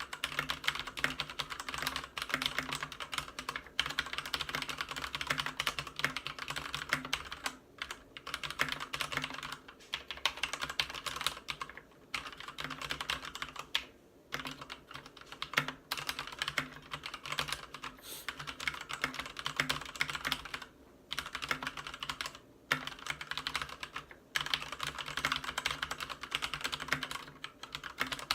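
Continuous fast typing on a Ducky Zero 3087 mechanical keyboard with Cherry MX Red linear switches and PBT keycaps: dense rapid key clacks in runs, broken by brief pauses every couple of seconds.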